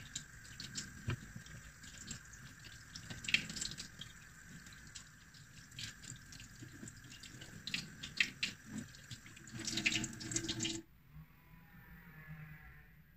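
Kitchen tap running into a stainless steel sink as hands rinse raw sardines on a wooden cutting board, with irregular splashes and small knocks. The water sound cuts off abruptly about eleven seconds in.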